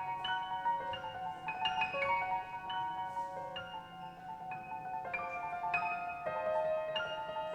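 Instrumental prelude music: quick, bright struck notes in the upper register, each ringing briefly.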